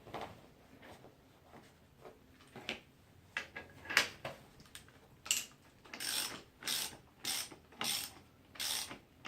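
Hand ratchet wrench clicking in regular back-and-forth strokes, about one every two-thirds of a second from about six seconds in, as it turns the screw of a clamp-type coil spring compressor on a strut. Before that, scattered clicks and knocks of tools and parts being handled.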